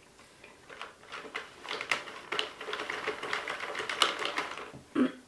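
Sentro circular knitting machine being cranked by hand: a dense, quick run of plastic clicking and rattling as the needle ring turns and the needles knit the yarn.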